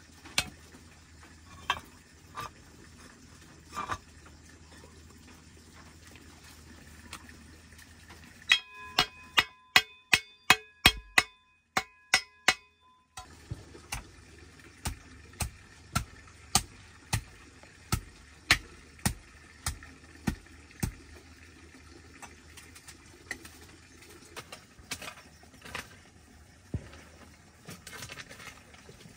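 Steel hoe chopping into packed red soil, one strike at a time, with evenly spaced blows a little under two a second in the second half. About eight seconds in comes a fast, loud run of about a dozen ringing metallic clinks, the hoe blade striking stone or metal.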